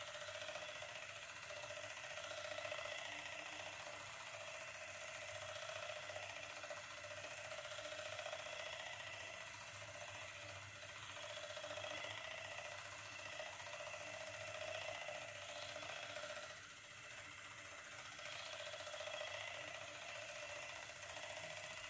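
Electric facial cleansing brush running with a steady motor buzz as it is worked over the cheek and the side of the nose.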